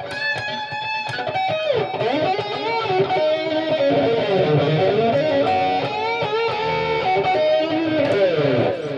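Homemade Flying V electric guitar played plugged in: a lead line of single notes, many bent up and down in pitch, with some held notes. The playing stops near the end.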